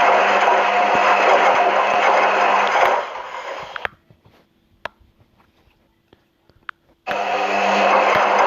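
Washing machine running with a steady humming, whooshing noise that dies away about three to four seconds in, leaving near silence with a few faint clicks, then starts again abruptly at full level about seven seconds in.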